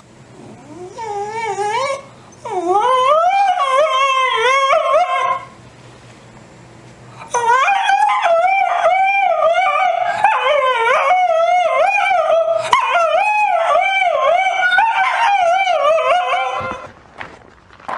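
French bulldog howling in long, wavering, warbling cries. A few shorter rising howls come first, then a break of about two seconds, then about nine seconds of almost unbroken howling.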